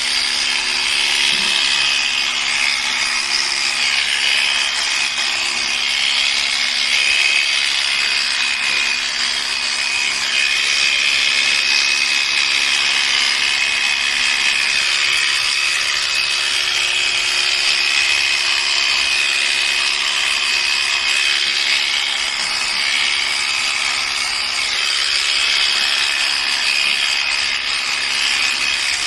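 Electric sheep-shearing clippers running steadily with a high whine as they trim a sheep's wool.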